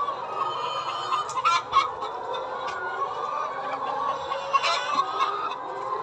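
A large flock of Lohmann Brown laying hens clucking together in a continuous, dense chatter. Louder, sharper calls stand out twice, about a second and a half in and near five seconds in.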